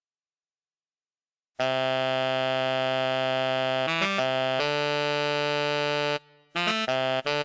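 Buzzy cumbia-style synthesizer sample played solo: after about a second and a half of silence, one long held note with a quick flick to other pitches in the middle, then a few short staccato notes near the end.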